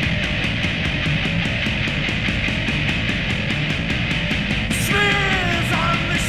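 Industrial noise rock: dense distorted guitar and bass over drums, with a fast, even cymbal tick about six times a second. About five seconds in, a high pitched note slides downward over the din.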